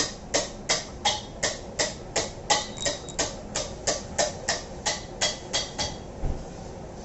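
Hammer striking metal in an even rhythm, about three blows a second, each with a short metallic ring. The blows stop about six seconds in.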